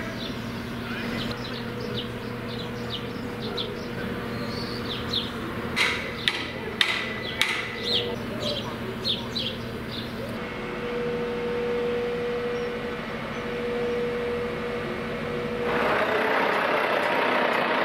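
Construction-site sound around a mobile crane: the crane's engine runs steadily under short bird chirps, with several sharp clanks about six to eight seconds in. From about ten seconds a steady whine sets in, and near the end a louder, even engine noise takes over.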